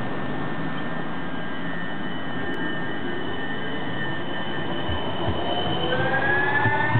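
Siemens Avanto S70 tram-train pulling away from a stop. Its drive whines on steady tones, then from about five seconds in several tones rise in pitch as it gathers speed, with a few low thumps near the end.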